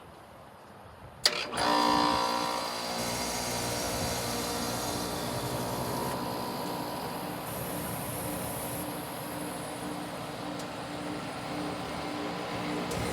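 Bryant Preferred Series heat pump coming out of defrost. A sharp click about a second in is followed by a loud whoosh of refrigerant as the reversing valve shifts back to heating. It then settles into the steady hum of the compressor and outdoor fan running.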